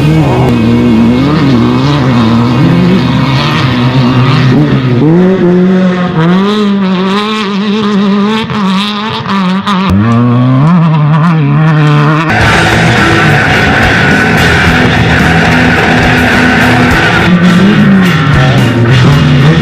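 Off-road race vehicle engines running hard, the revs rising and falling again and again as they are driven around the course. The sound changes abruptly about twelve seconds in.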